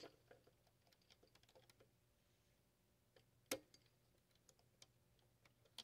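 Faint, scattered small clicks and ticks, with one sharper click about three and a half seconds in: an X-Acto blade prying up capacitor leads on a circuit board while a soldering iron melts the joints.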